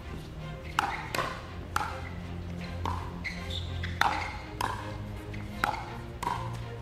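Pickleball paddles striking the hard plastic ball in a rally, about eight sharp pops roughly every half second to a second, over background music.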